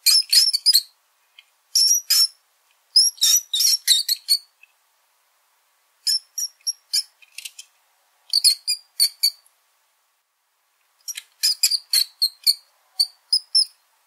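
Small rodent squeaking: high-pitched chirpy squeaks in quick runs of several, six runs with pauses of one to two seconds between them.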